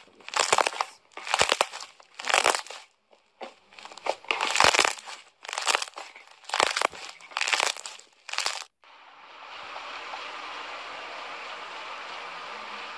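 Slime being squeezed and folded by hand, making a crackling, crunching squish about once a second. A little before the end these squishes stop abruptly and a steady even hiss takes over.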